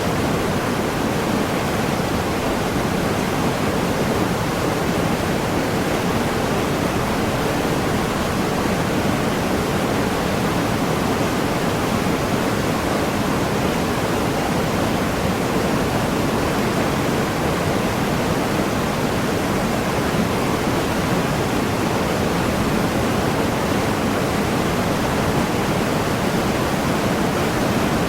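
Waterfall rushing steadily, a dense, even roar of falling water with no change.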